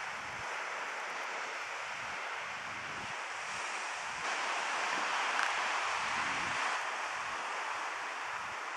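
Pacific Ocean surf washing ashore: a steady rush that swells louder about four seconds in and eases off again near seven seconds.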